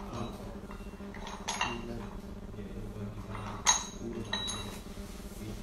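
A few short metallic clinks, each ringing briefly, the loudest about two-thirds of the way through: a dumbbell's metal plates and collars knocking together as it is lifted during seated curls. A low steady hum runs under them.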